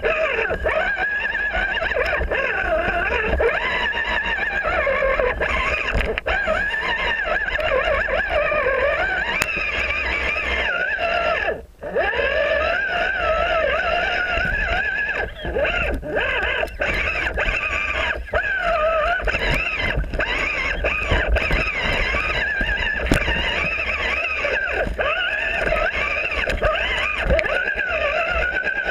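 RC rock crawler's electric motor and gear drive whining, the pitch wavering up and down with the throttle as it climbs over rocks and pine needles. It cuts out for a moment about twelve seconds in.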